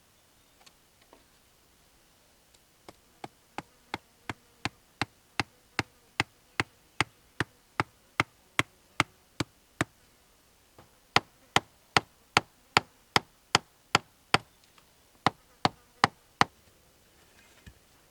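Sharp knocks in a steady rhythm, about three a second, in three runs with short pauses between. They grow louder through the first run.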